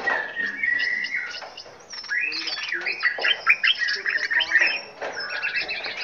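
Several small aviary birds singing and chirping over one another, with a held whistled note in the first second and quick overlapping chirps in the middle.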